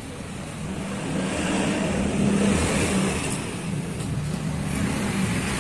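A vehicle engine running, growing louder from about a second in and easing off slightly after the middle.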